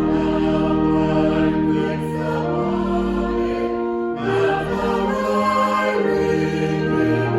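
Choir singing a hymn in held chords that change every second or two.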